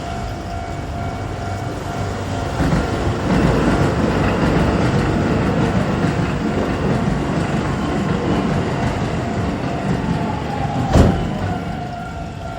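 Keisei Main Line electric train passing over a level crossing, its wheel and track rumble building from about two seconds in and easing off near the end, with one sharp knock near the end. The crossing's warning bell rings steadily underneath.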